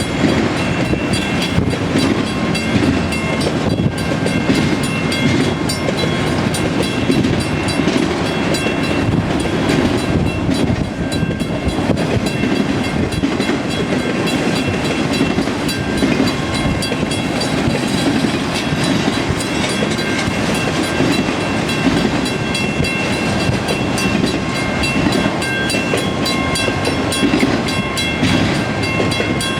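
Cars of a Canadian Pacific autorack and mixed freight train rolling past, a loud, steady, unbroken rumble with faint thin high tones above it.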